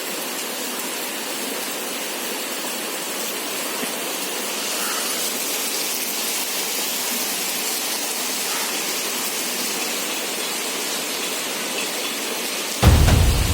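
Heavy rain pouring down in a steady, even hiss. In the last moment, loud music with a deep bass cuts in suddenly.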